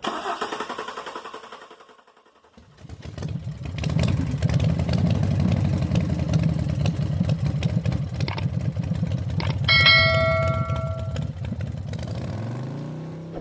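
Starter motor cranking a 2019 Chevrolet Silverado's gasoline V6 in fast, even pulses for several seconds without the engine catching, the sign of a crank-no-start fault that the uploader traces to the fuel pump. A dashboard warning chime dings once about ten seconds in.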